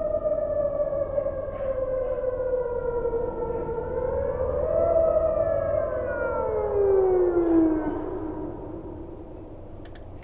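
Outdoor tornado warning siren sounding during a siren test. Its pitch sags slowly and rises once, then from about five seconds in it winds down, the pitch falling steadily as the sound fades away near the end.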